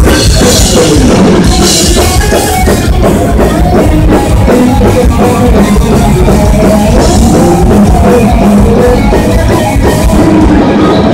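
Thrash metal band playing live and loud: distorted electric guitars over a pounding drum kit.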